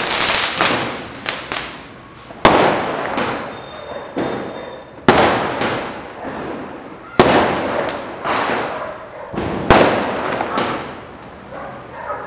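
Aerial fireworks bursting in the sky: four loud bangs two to three seconds apart, each trailing off in a fading crackle, with smaller pops between them.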